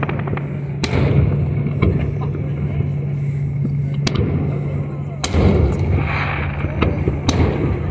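Aerial fireworks shells bursting overhead: a series of sharp booms a second or more apart, the biggest about five seconds in, over a steady low hum.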